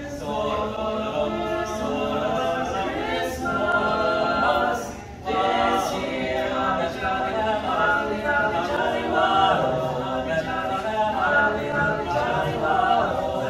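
Small group of teenage boys singing together a cappella, with a brief break about five seconds in.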